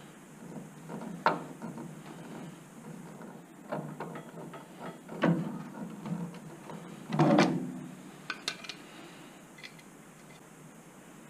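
Irregular clicks and knocks from hands and tools working on an old car door's latch and window hardware, with a longer rattling clunk about seven seconds in and two quick clicks just after.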